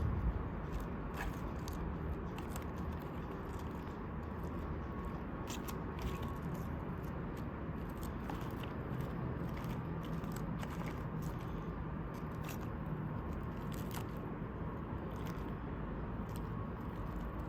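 A person biting and chewing food, with scattered crisp crunches and clicks over a steady low background hum.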